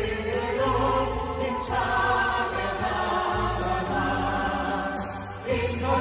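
A group of singers singing together through microphones, holding long notes over deep bass notes. The music dips briefly about five and a half seconds in, then comes back louder.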